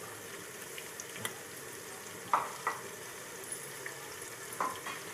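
Sliced onions and green chillies frying in hot oil, a steady sizzle, with a few sharp clinks about two seconds in and again near the end.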